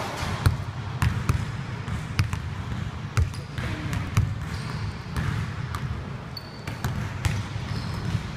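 Basketball being dribbled on a hardwood gym floor: repeated sharp bounces at an uneven pace, about one or two a second.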